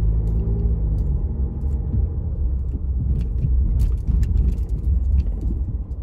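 Low engine and road rumble heard from inside a car's cabin while driving in town traffic, with a steady engine tone that fades about a second in.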